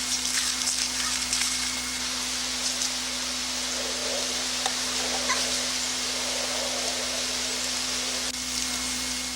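Steady hiss under a constant low hum, with a few faint short chirps.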